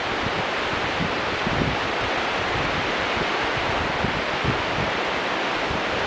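Steady rushing hiss of the Rio Grande's whitewater rapids, mixed with wind buffeting the microphone of a camera dangling on a line above the river.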